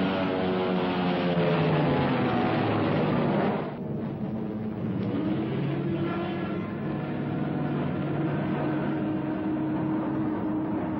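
Propeller aircraft engines droning, the pitch falling as one passes, then an abrupt cut about four seconds in to another steady engine drone.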